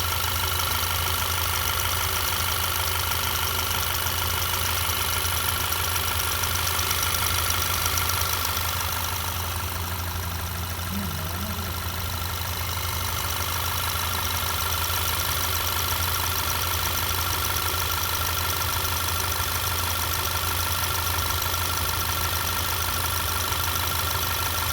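Volkswagen GTI 2.0-litre turbocharged four-cylinder idling steadily, with a light repeated ticking from the evap purge valve solenoid clicking open and shut at idle. Owners and the dealer take this ticking to be normal.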